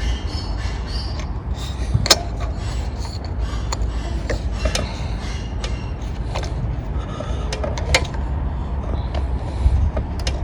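Scattered clicks, knocks and creaks of small-engine parts being handled and fitted back onto a Tecumseh lawn mower engine, the sharpest knocks about two seconds in and again near the end, over a steady low rumble.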